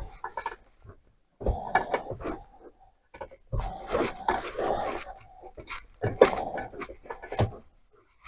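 Combination pliers biting on a worn steel bar stud of a chainsaw crankcase and turning it out, the jaws grating on the threads in repeated short bursts, one per turning stroke. The stud is freeing up after being held by thread locker, and the jaws are chewing metal shavings off it.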